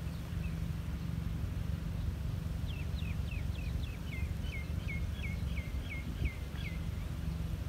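A bird calls a quick run of about a dozen short, downward-sweeping notes, about three a second, starting about three seconds in, over a steady low outdoor rumble.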